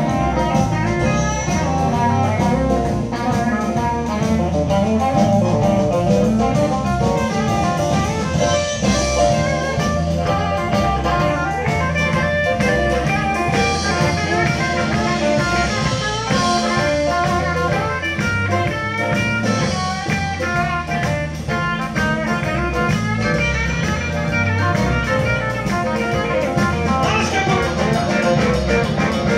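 Live electric blues band playing an instrumental passage: electric guitar and harmonica lead lines over piano, bass guitar and a drum kit, with a steady walking bass.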